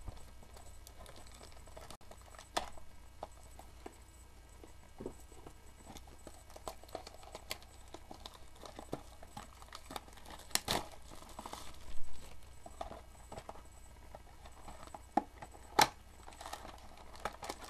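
Plastic shrink wrap crinkling and tearing as a trading-card mini box is unwrapped by hand, with scattered sharp crackles, a few louder ones standing out.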